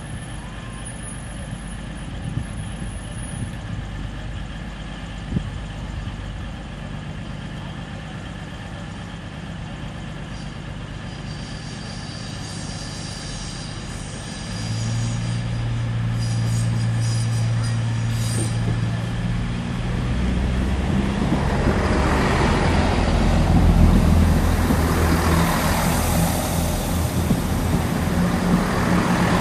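Class 220 Voyager diesel multiple unit's underfloor diesel engines running at the platform with a steady low hum; about halfway through, a deep drone comes in suddenly as the engines power up. In the last several seconds a GWR diesel multiple unit rumbles past close by. Its noise is the loudest part of the clip.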